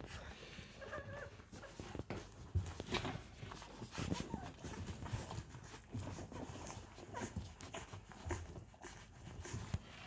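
Week-old golden retriever puppies nursing on their mother: faint, irregular suckling clicks and smacks, with a few small squeaks about a second in.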